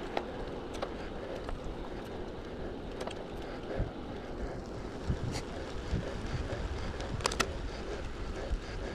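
Steady rumble of a road bike riding on asphalt: tyre noise mixed with wind buffeting the microphone. A few sharp clicks, two close together near the end.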